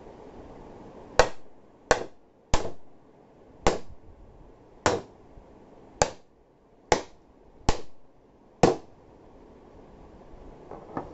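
A hammer striking the glass top of a touchscreen induction cooktop nine times, about one sharp knock a second, cracking the glass.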